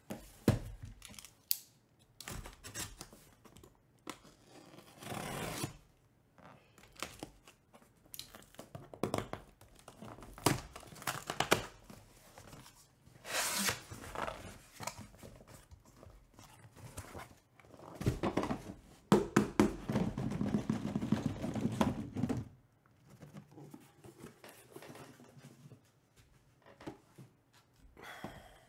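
A cardboard shipping case being opened by hand: packing tape torn, flaps pulled back, and the cardboard boxes inside slid out and set down in stacks. Short tearing sounds, knocks and thumps, with a longer stretch of cardboard scraping and rustling a little past the middle.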